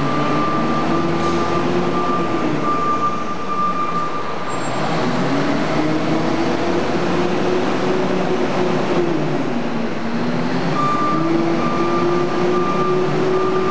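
SEM 659C wheel loader's diesel engine revving up and easing off repeatedly as the machine works. A high-pitched beeper, typical of a reversing alarm, sounds in steady pulses at first, stops about four seconds in, and returns near the end.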